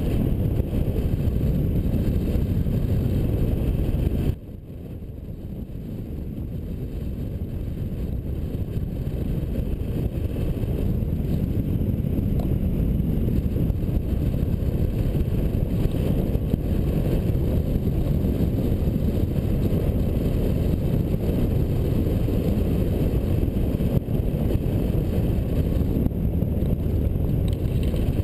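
Rushing wind buffeting the microphone of a camera mounted on a hang glider in flight: a steady low rumble. About four seconds in it drops suddenly, then builds back up over several seconds.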